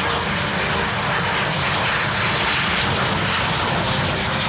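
Aero L-39 Albatros jet trainers, each with a single turbofan, running at takeoff power as they roll down the runway: a loud, steady rushing jet noise with a thin high whine.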